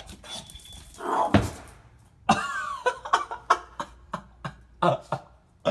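A pug barking in a string of short, sharp barks, about two a second, after a longer noisy burst about a second in.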